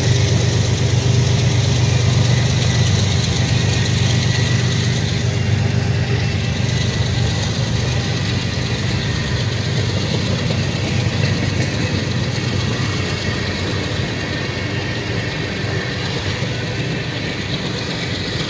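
Freight cars of a long mixed freight train rolling past: a steady rumble of steel wheels on the rails that eases slowly in loudness.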